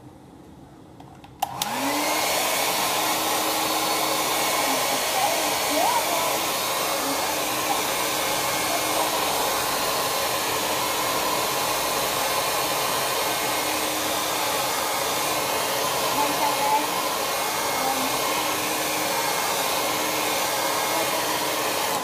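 Small handheld hair dryer switched on with a click about a second and a half in; its motor note rises briefly as it spins up, then it blows with a steady rush. It is drying wet watercolour paint, and it shuts off at the very end.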